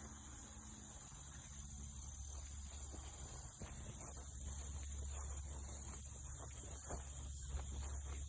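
Insects in the woods trilling steadily at a high, constant pitch, with a few faint ticks and crackles scattered through.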